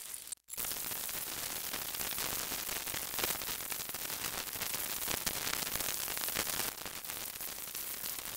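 Steady hiss of static noise, spread evenly from low to very high pitches, dropping out for a moment about half a second in.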